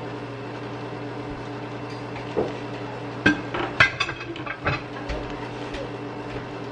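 A spatula and plate knocking and clinking against a skillet as shredded chicken is scraped off the plate and stirred into the sauce, with a quick cluster of sharp knocks about three to five seconds in over a steady low hum.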